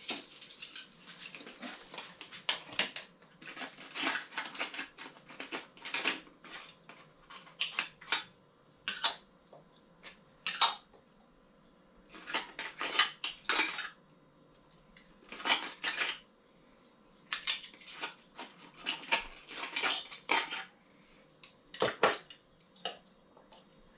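Glass canning jars and their lids clinking and clattering as they are handled and the lids fitted, in short spells of clatter with quiet gaps between, and one sharper clank near the end.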